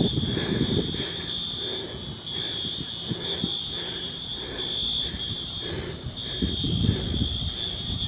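Distant Wheelock fire alarm horns sounding in repeating pulses over a steady high tone, signalling a building evacuation. Low rumbling noise sits underneath.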